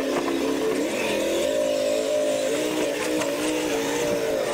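Motors of R/C monster trucks whining as the trucks race, the pitch rising and falling with the throttle.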